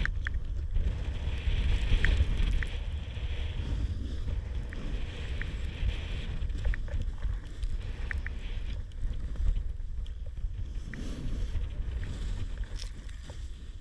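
Snowboard running through deep powder snow, a hiss of sliding snow that swells and fades, under a heavy low rumble of wind buffeting the action camera's microphone, with scattered light clicks.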